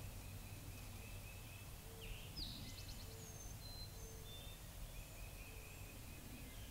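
Faint songbirds calling, with thin high whistles and chirps and a quick trill about two and a half seconds in, over a quiet woodland background.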